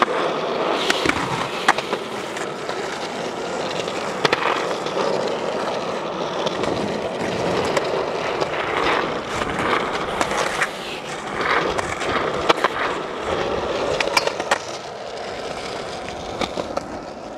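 Skateboard wheels rolling over rough asphalt, a steady grinding roll broken by several sharp clacks from the board, easing a little near the end.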